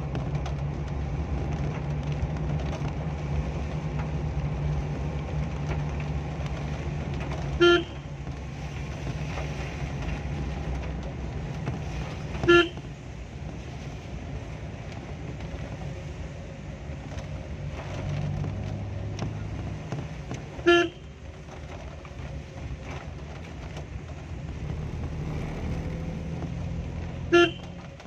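Vehicle horn giving four short toots several seconds apart, over the steady low hum of the moving vehicle.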